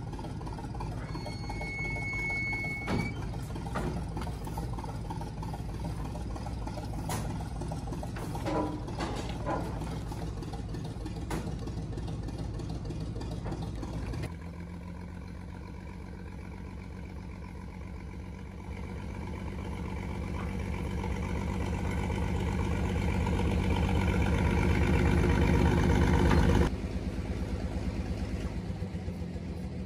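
A crane engine running steadily, with scattered metallic knocks and a brief high squeal about a second in. In the second half it climbs in pitch and loudness over several seconds, as under hoisting load, then drops back suddenly about three seconds before the end.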